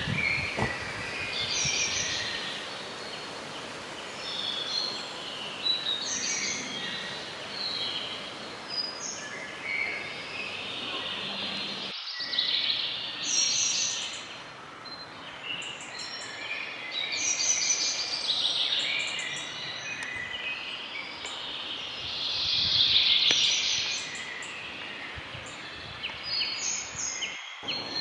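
Woodland songbirds chirping and singing, many short calls and trills overlapping, over a steady background hiss.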